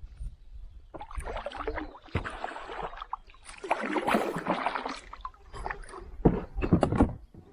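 Water splashing and sloshing in irregular bursts, with a few sharp knocks near the end.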